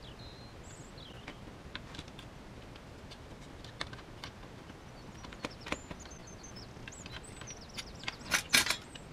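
Light clicks and knocks of hard plastic RC kit parts being handled and fitted together, a rear suspension arm going onto the gearbox, with a louder burst of clatter near the end.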